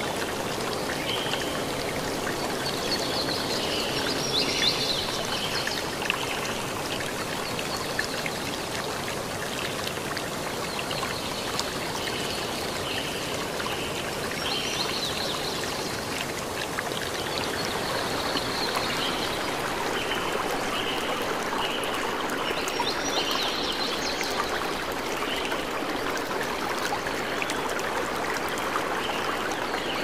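Waterfall plunging into a rock pool: a steady rush of falling and splashing water, with faint, short, high bird chirps repeating over it.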